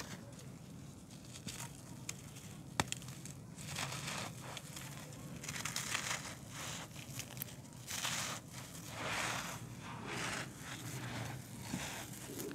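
Hands crushing and crumbling clumps of dry, dusty earth: irregular bursts of crunching and gritty crumbling, with one sharp snap a little under three seconds in.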